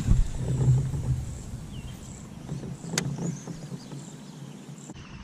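Casting a spinning rod from a kayak: a burst of handling noise and rumble at the start, then the reel being worked, with a sharp click about three seconds in.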